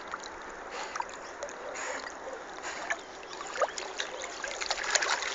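Light splashing and water lapping as a dog paddles through a river beside a small wooden boat, with small splashes getting busier near the end.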